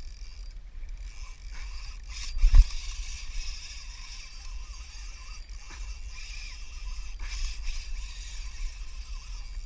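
Wind buffeting an action camera's microphone on a kayak at sea, with water noise around the hull, and one loud knock about two and a half seconds in.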